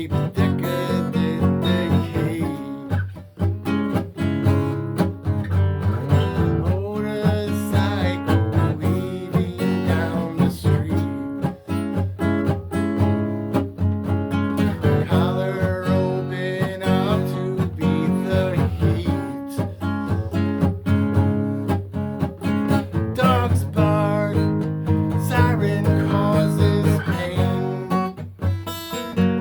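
Acoustic guitar music, strummed in a steady rhythm.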